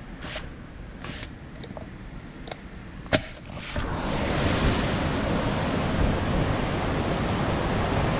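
Hurricane-force wind, with several knocks and one sharp bang about three seconds in. About four seconds in the wind noise jumps up and stays loud and steady.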